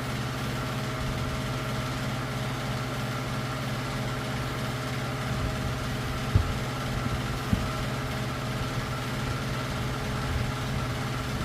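A steady mechanical hum with several even tones, with two light knocks a little past the middle.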